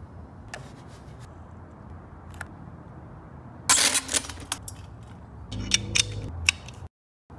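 Metal clinks and rattles of paintless dent repair tools and a light stand being handled, over a steady low hum. The loudest clatter comes about halfway through, followed by a few sharp clicks. The sound then cuts off abruptly near the end.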